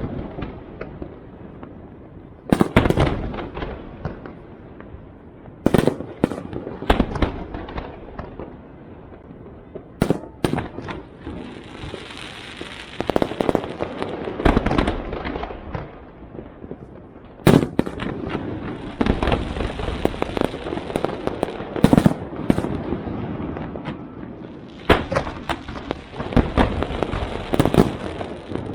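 Aerial fireworks display: sharp bangs of bursting shells every few seconds, with stretches of dense crackling in between.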